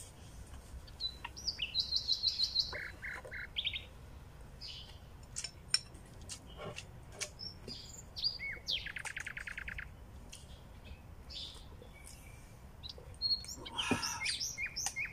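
Small birds chirping and trilling, with quick runs of rapidly repeated notes about two seconds in and again near nine seconds. Scattered sharp clicks, and a brief louder sound near the end.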